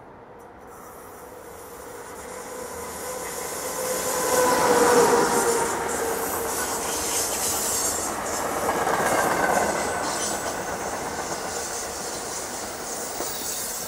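A MARC commuter train led by an HHP-8 electric locomotive passing close at speed. It grows louder to a peak about five seconds in as the locomotive goes by, with a steady tone over the rush, then the coaches clatter over the rails and the sound eases off near the end.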